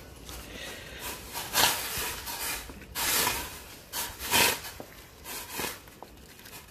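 Wooden spoon stirring lo mein noodles in a pot of boiling water, in several separate strokes that loosen the noodles so they don't stick together.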